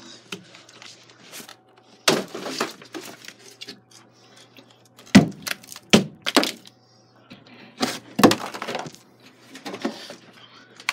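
Hammer blows breaking up demolition rubble of plaster and drywall: several sharp, unevenly spaced cracks, each followed by a crunch of breaking pieces.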